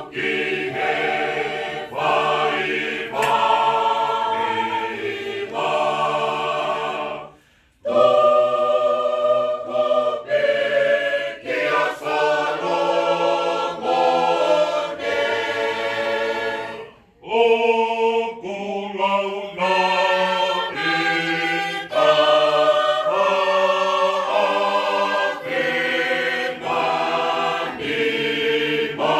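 Large mixed choir of men and women singing a Tongan hymn (hiva fakalotu) in parts, unaccompanied, on long held chords. The singing stops briefly twice between phrases, about seven and seventeen seconds in.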